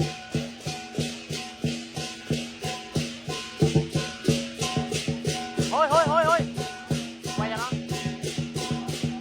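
Lion dance percussion playing: drum strokes in a steady, driving rhythm with cymbals and gong ringing between them. About six seconds in, a short wavering high tone sounds over it, with a briefer one a little later.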